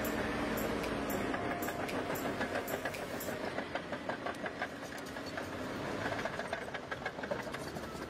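Caterpillar D7R crawler bulldozer working soil: a diesel engine hum with a steady pitch fades after about the first second, under a constant rattle of rapid clanks from the steel tracks.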